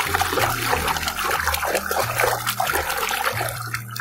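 A hand sloshing and churning muddy water in a plastic tub: continuous, uneven splashing and swishing.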